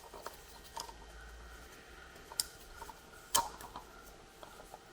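Light clicks and taps of small oil-filter housing parts and seals being handled and fitted. The sharpest click comes about three and a half seconds in.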